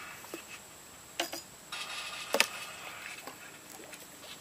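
Spinning fishing reel being handled and cranked: a couple of sharp clicks about a second in, then about a second of the reel turning with a louder click in the middle of it.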